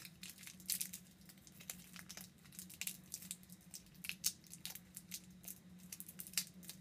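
Plastic Laffy Taffy wrapper crinkling faintly in the fingers, with small irregular crackles, as the soft taffy is peeled off the wrapper it is sticking to. A faint steady low hum lies underneath.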